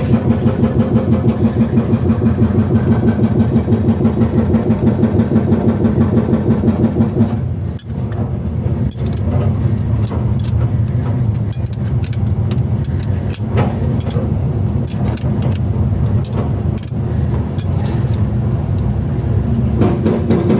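Excavator-mounted hydraulic breaker hammering in a fast, even rhythm of several blows a second. It stops suddenly about eight seconds in, leaving the excavator's engine running with scattered sharp clicks and knocks, and starts hammering again near the end.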